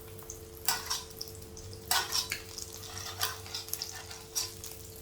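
A spatula scraping and stirring in a pan of hot ghee, with a light frying sizzle under irregular scrapes; the loudest strokes come just under a second and about two seconds in. A steady low hum runs underneath.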